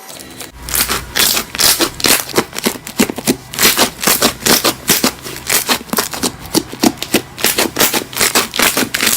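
Slime being squeezed and pressed by hand, giving rapid, irregular crackles and pops.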